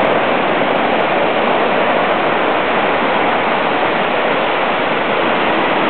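Steady, loud rush of flowing water, even and unbroken.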